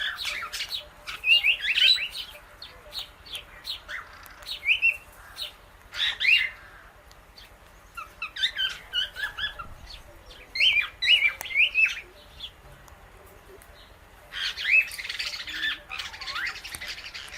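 Indian ringneck and Alexandrine parrots giving short squawks and chirps mixed with clicks, in bouts of a second or two with brief pauses between them.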